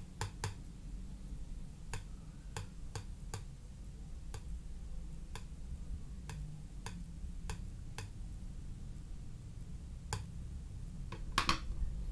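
Irregular sharp clicks of fingertips tapping on smartphone touchscreens, with a louder cluster of handling knocks near the end, over a low steady hum.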